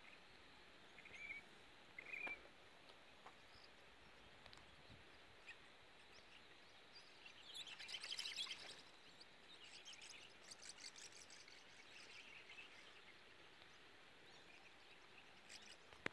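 Near silence outdoors with faint, sparse bird chirps. A brief, louder flurry of rapid high chirping comes about eight seconds in.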